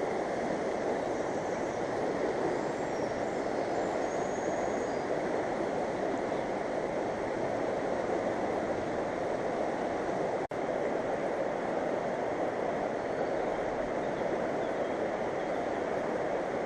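Steady rush of a fast-flowing mountain river, an even roar of moving water, broken once by a split-second gap about ten seconds in.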